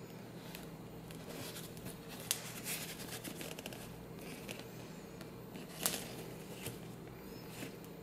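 Faint handling noise from a gloved hand turning a studded black leather Saint Laurent SL/08H high-top sneaker: soft rustling with a few short clicks, the sharpest about two seconds in and again about six seconds in, over a low steady hum.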